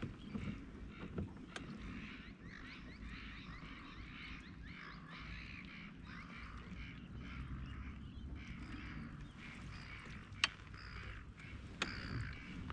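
A flock of birds calling and chattering together, a dense, unbroken run of short chirps and squawks, over a low rumble of water and wind. Two sharp clicks come through about ten and twelve seconds in.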